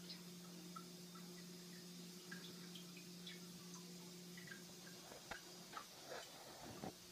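Faint dripping and plinking of a cat urinating into a toilet-training seat's tray over the toilet bowl, with a steady low hum under it that stops partway through. From about five seconds in, a few sharp knocks.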